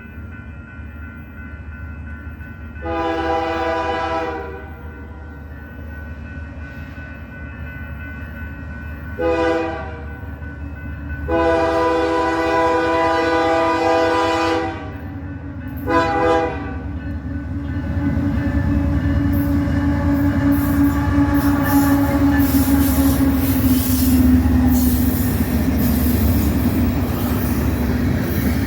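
Locomotive air horn sounding four blasts of several notes at once (long, short, long, short) over a low steady rumble. The train then draws level and passes, getting louder, with wheels clattering over the rail joints.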